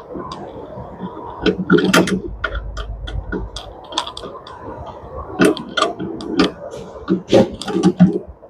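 Irregular metal clicks and clatter of a spanner working the adjustable nut on a Samsung top-loading washer's clutch, the nut that has been coming loose and stopping the spin.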